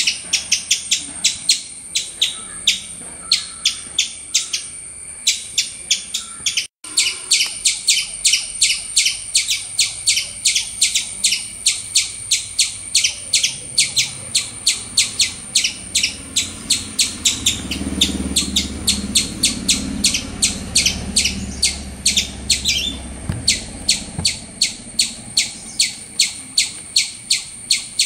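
A long, regular series of short, high chirps, about four a second, over a steady high-pitched hiss.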